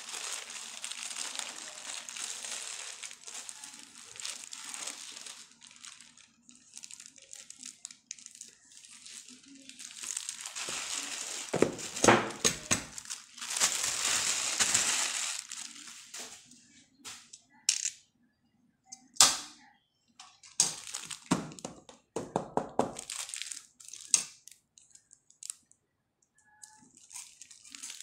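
Plastic mailer bag crinkling and tearing as it is cut open and handled, with loud bursts of crinkling about ten seconds in. Then a series of sharp clicks and knocks as a boxed item is set down on a glass tabletop and handled.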